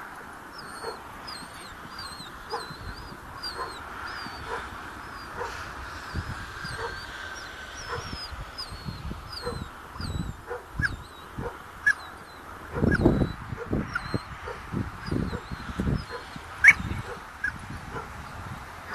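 A dog barking again and again, about once a second, with high-pitched yelps in between; a low rumble swells and fades about two-thirds of the way in.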